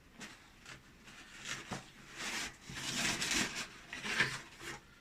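Paper and packaging rustling and rubbing as items are taken out and handled, in irregular bursts with a few light clicks, busiest in the middle.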